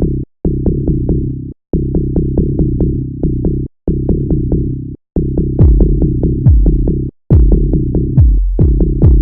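Electronic dance music: a heavy bass-synth riff with a drum-machine beat, cut by short dead-silent breaks about every two seconds.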